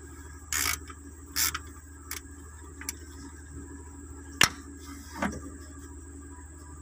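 Hand tools clinking and knocking on metal about six times, the sharpest about four and a half seconds in, over a steady low hum and a faint high whine.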